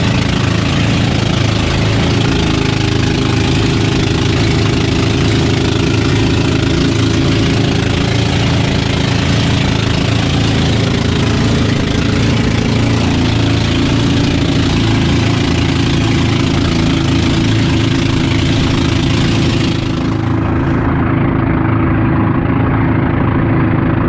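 Small passenger boat's engine running steadily at cruising speed, loud, under a rushing hiss of wind and spray off the choppy sea. About 20 s in the hiss cuts away suddenly while the engine carries on.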